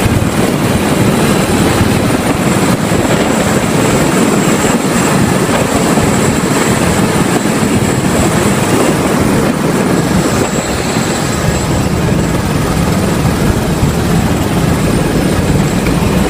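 A helicopter running close by: a loud, steady roar of rotor and turbine with a thin high whine above it.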